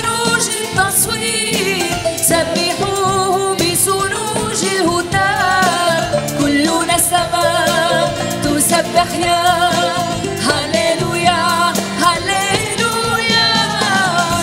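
Arabic Christian worship song performed live: a woman singing a wavering, ornamented melody over a band of acoustic guitar, bass guitar and percussion, with backing singers.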